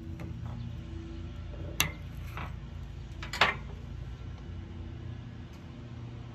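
Two sharp clicks of a knife blade against a ceramic plate while cutting a cherry tomato, about two seconds in and again a second and a half later, over a steady low hum.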